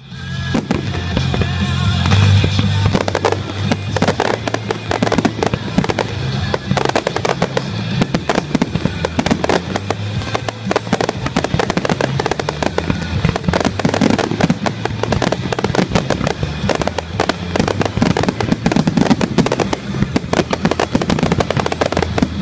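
Fireworks going off in a dense, continuous string of sharp cracks and bangs, with music playing underneath.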